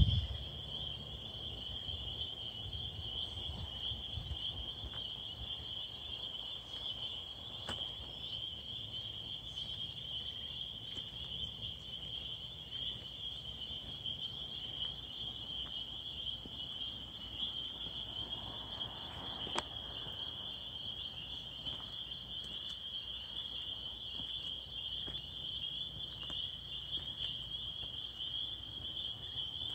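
A dense, high-pitched chorus of small calling animals, a steady shrill trilling that never lets up. One sharp tick stands out about two-thirds of the way through.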